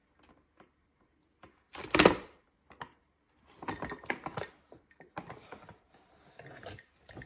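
Paper gift bag rustling and crackling as hands dig into it and pull at what is inside, with one loud crackle about two seconds in and a run of smaller crinkles and clicks after it.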